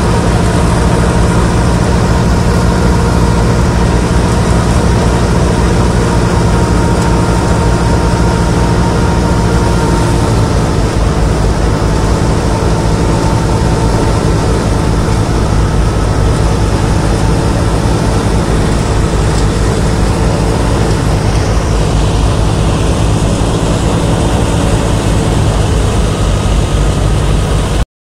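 Al-Ghazi tractor engine running steadily, driving a thresher through its PTO shaft while mustard stalks are fed into the threshing drum. The steady hum breaks off for a moment near the end.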